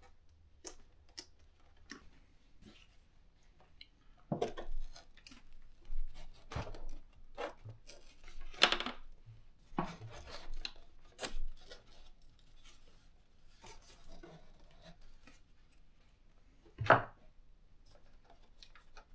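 Scattered clicks, taps and knocks of a foam RC plane's wing and plastic parts being handled and fitted onto the fuselage, with one louder knock near the end.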